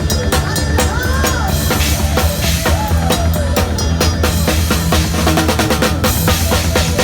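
A drum kit played with a band: quick, regular kick, snare and cymbal strikes over a steady bass line, with a melody line above.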